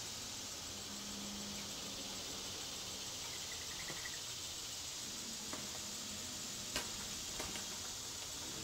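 Steady high-pitched hiss of a summer insect chorus, with a few faint clicks in the second half.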